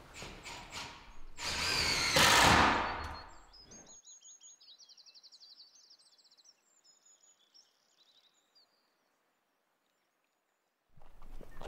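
A few sharp knocks, then a loud rushing noise lasting about two seconds. Faint high bird chirps and a short trill follow and die away.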